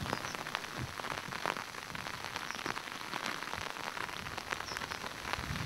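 Steady rain, with an irregular patter of drops.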